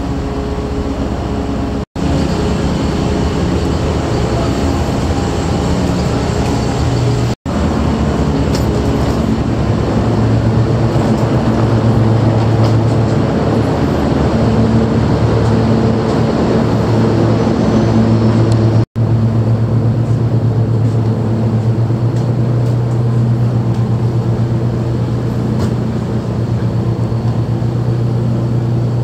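Steady drone of the Ocean Arrow ferry's engines and machinery, a low hum with a few steady tones that grows stronger and fuller about a third of the way in. The sound drops out briefly three times.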